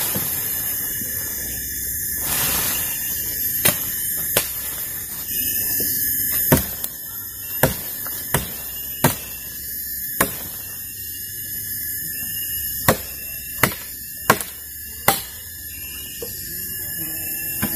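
About ten sharp machete chops into branches, irregularly spaced a second or so apart, over a steady high-pitched drone of forest insects.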